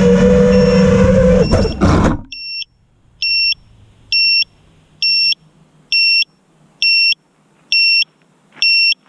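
A 5-inch FPV quadcopter's brushless motors running at a steady high pitch, ending about two seconds in with a brief clatter as the motors stop. Then an electronic beeper sounds a short two-tone beep about once a second, eight times.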